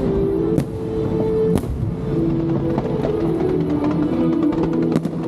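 Fireworks bursting overhead, a few sharp bangs, about half a second in, around a second and a half in, and two close together near the end, over music with long held notes.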